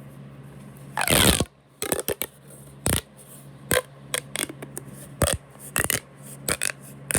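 Plastic pop tube being stretched and squashed: a half-second rasping crackle about a second in, then a run of short sharp pops and clicks.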